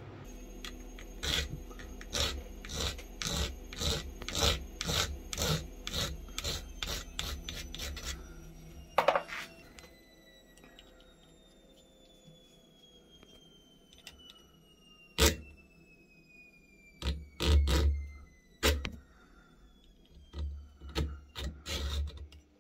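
Hacksaw cutting a slot in the head of a small metal screw held in a vise. The strokes go back and forth steadily, about two a second, then pause with a few sharp knocks, and the sawing resumes near the end.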